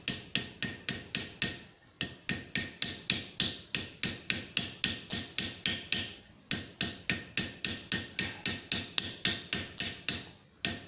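Rapid, even hand-hammer blows, about four a second, on a .50 BMG brass shell casing against the anvil horn, drawing in and reducing its neck. Each blow has a short ring. The rhythm breaks briefly about two seconds in, about six seconds in and near the end.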